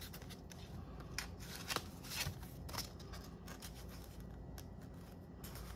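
Paper banknotes and a paper cash envelope rustling and sliding as the bills are handled and tucked in, with soft, irregular crinkles.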